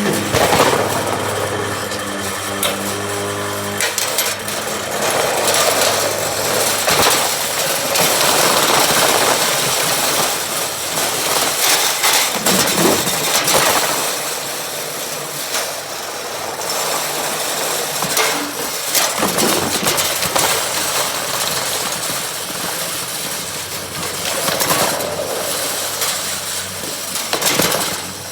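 Riding lawnmower engine running while the mower is driven, with a rough, rattling clatter that swells and eases along the way.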